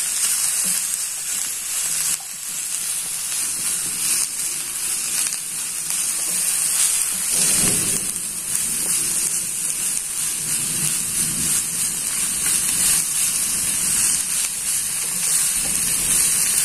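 Shredded cabbage, green capsicum and onion sizzling in a nonstick frying pan over a medium gas flame, turned and tossed with a wooden spatula. An even, steady hiss.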